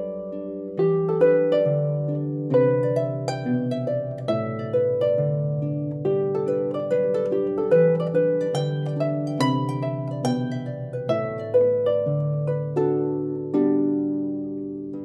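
Solo harp music: a steady run of plucked notes over a few low bass notes, the last chord left ringing and fading near the end.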